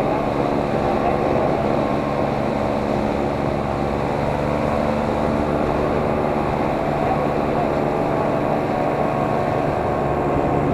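Steady motor hum holding several fixed tones at an even level, with no change in speed.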